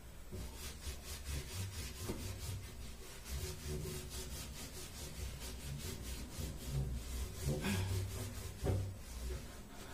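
A cloth scrubbing a hard kitchen surface by hand in quick, even back-and-forth strokes, with a couple of light knocks near the end.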